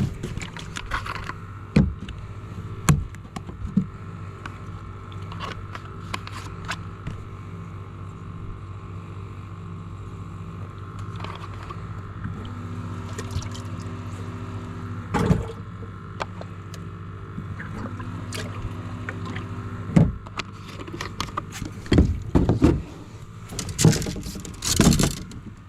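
A boat's motor hums steadily, with water lapping and scattered sharp knocks and clicks, the loudest cluster near the end.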